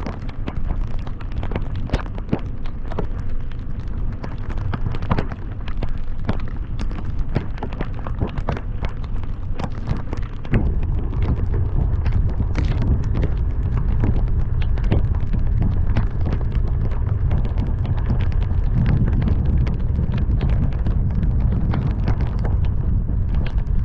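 Heavy rain while driving: many sharp raindrop hits over a steady low rumble of wind and road noise. The rumble gets louder about ten seconds in.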